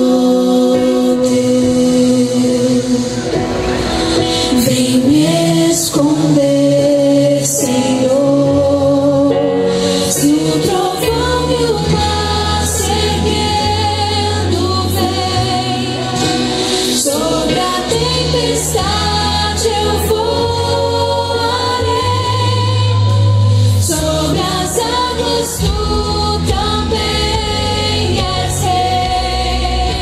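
A woman singing a gospel song into a handheld microphone over instrumental accompaniment, with vibrato on her held notes; a fuller low bass part comes in about eleven seconds in.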